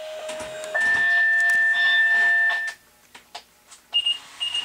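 Steady electronic tones for about two and a half seconds, stepping up slightly in pitch early on with a second, higher tone joining. After a short quiet, a run of short high beeps follows, about two a second.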